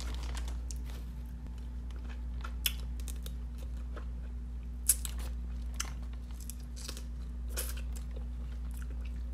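Close-miked eating of seafood-boil crab legs: shell cracking and chewing, with scattered sharp crunches, the loudest about five seconds in, over a steady low hum.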